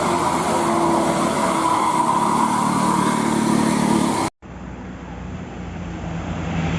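Road noise of buses passing: a loud, even rush with a few faint steady tones. About four seconds in it cuts off abruptly, and quieter traffic noise follows.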